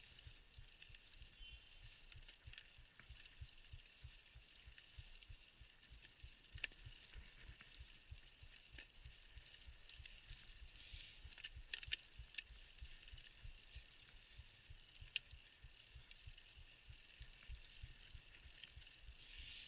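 Mountain bike rolling down a rutted dirt track: a low, muffled rumble with scattered sharp clicks and rattles as the bike goes over bumps, a cluster of them a little past halfway.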